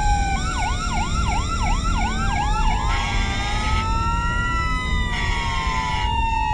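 Several emergency-vehicle sirens sound together. One is a slow wail rising and falling in pitch. For the first three seconds another gives a fast yelp, sweeping about three times a second. A low rumble runs underneath.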